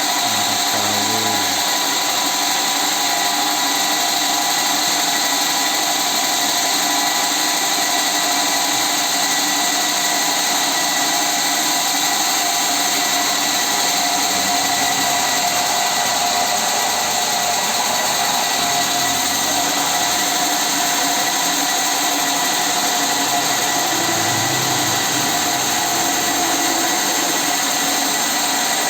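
A power machine running steadily without a break: a continuous noisy whine with a constant high-pitched hum.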